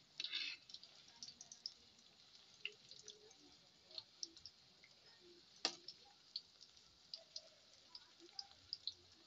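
Banana-blossom patties deep-frying in a wok of oil, the oil faintly crackling with many small scattered pops. A metal spatula scrapes in the pan about half a second in and clacks once sharply near the middle.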